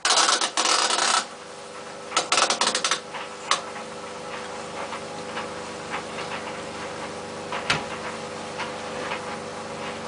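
White Knight CL432WV tumble dryer starting a low-heat cycle: about a second of loud rattling and clicking as the timer knob is turned, a shorter clatter soon after, then the motor and turning drum run with a steady hum and occasional light knocks.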